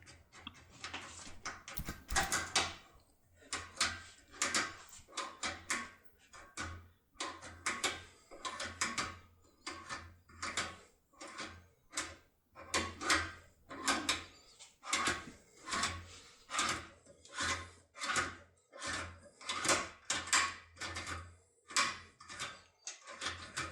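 Force tool being rocked back and forth on a power handle inside a Picard cylinder lock, the key profile crunching and scraping against the pins: a steady run of short metallic crunches, a bit more than one a second.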